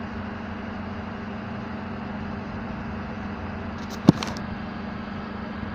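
Ambulance engine running at idle with a steady hum. A single sharp knock comes about four seconds in.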